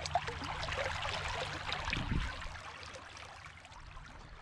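Water splashing and trickling along a moving canoe's hull and stabilizer floats, with one heavier slosh about two seconds in, gradually fading.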